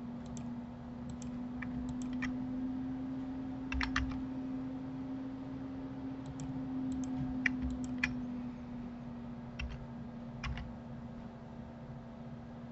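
Scattered computer keyboard keystrokes and mouse clicks, irregular and often in quick pairs, over a steady low hum.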